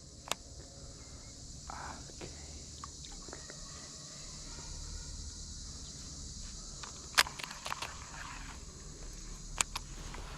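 Steady high insect chorus droning outdoors, with low wind rumble and a few sharp clicks or ticks, the loudest about seven seconds in.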